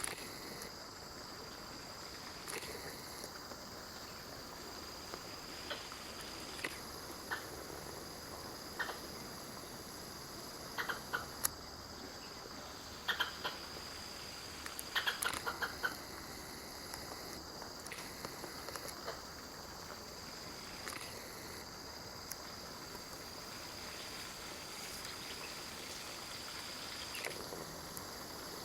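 Insects buzzing on one steady high note, with a higher band of sound switching on and off every few seconds. Around the middle come clusters of short, sharp chirping calls from an unidentified animal on the hillside.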